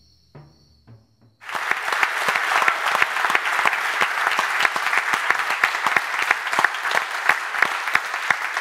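The last of a film soundtrack's music fades out, then an audience breaks into applause about a second and a half in, steady dense clapping.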